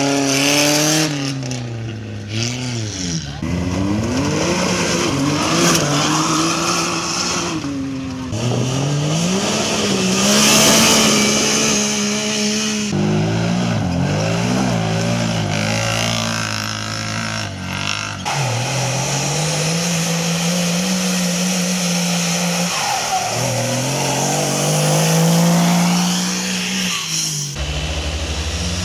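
Off-road vehicle engines revving hard, the pitch repeatedly rising and falling with the throttle. The sound changes abruptly about thirteen, eighteen and twenty-seven seconds in, as if switching from one vehicle to another.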